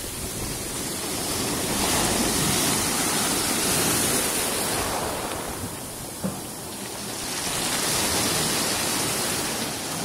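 Stormy Black Sea surf: waves breaking and washing up the shore in a steady rush that swells twice and ebbs between, with a brief knock about six seconds in.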